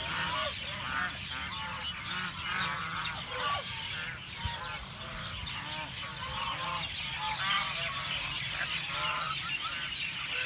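Ducks honking and quacking over a dense, continuous chorus of chirping small birds such as house sparrows. A low, steady rumble lies underneath.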